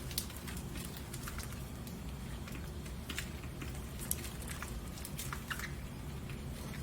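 Pet budgerigars making scattered soft clicks and scratchy ticks, with a few brief high chirp notes, over a steady low hum.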